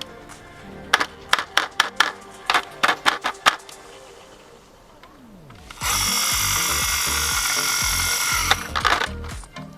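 Background music with a low beat, under a quick run of sharp clicks. About six seconds in, a loud, steady whirring noise starts and lasts nearly three seconds before cutting off.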